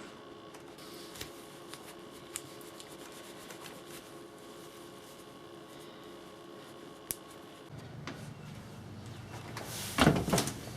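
Small clicks and light rubbing as a metal double-hung window sash latch is handled and polished, then a burst of louder clicking and clatter about ten seconds in.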